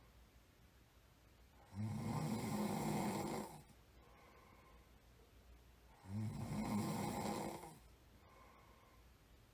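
A sleeping person snoring: two snores, each nearly two seconds long, about four seconds apart, with quiet between them.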